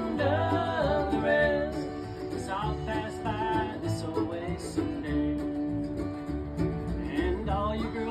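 A small band playing country/bluegrass music live, in an instrumental stretch with no sung words, where a lead melody slides between notes over the steady accompaniment.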